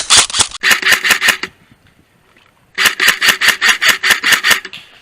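Airsoft rifle firing two full-auto bursts, a short one and then a longer one of over a dozen shots, at about seven or eight shots a second.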